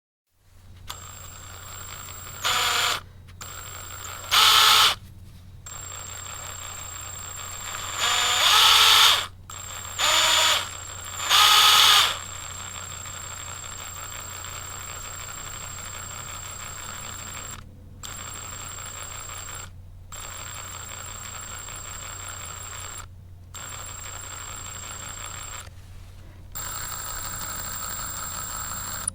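Power drill running in bursts: five short, loud high-speed bursts in the first twelve seconds or so, then a long stretch of steadier, quieter running with a few brief stops.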